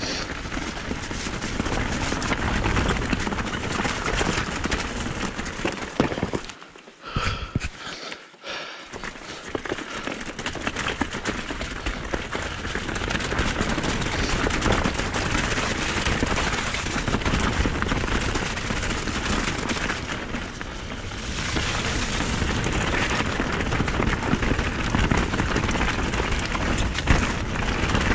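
Mountain bike clattering and rattling over a rocky trail at speed, the tyres and frame hammering on loose stones in a rapid, continuous racket. The noise drops off briefly about seven seconds in, then resumes.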